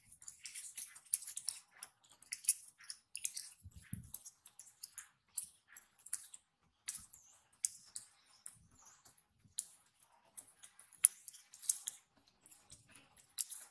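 A long-tailed macaque chewing crisp food, giving off irregular sharp crunches and clicks.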